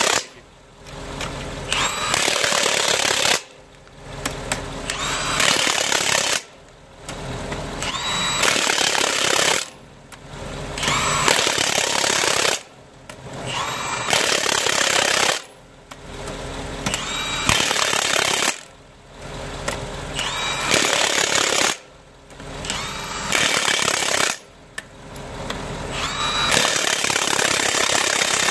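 Cordless 1/2-inch impact wrench (Milwaukee M18) running truck lug nuts down one after another. It goes in about nine hammering bursts of roughly two seconds each, and each burst starts with a brief rising motor whine. Short pauses fall between bursts as the gun moves from nut to nut.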